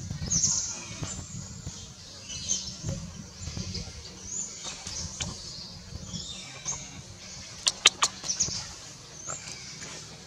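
An infant long-tailed macaque giving short, high squeaks every second or two, with a few sharp clicks about eight seconds in.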